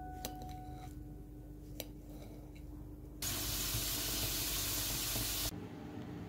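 A knife slicing banana against a glass bowl gives a couple of light clicks. Then pancakes sizzle in a hot frying pan for about two seconds, and the sizzle stops abruptly.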